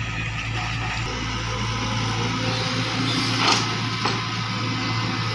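Hitachi Zaxis hydraulic excavator's diesel engine running steadily while it digs river mud, with one brief sharp knock about three and a half seconds in.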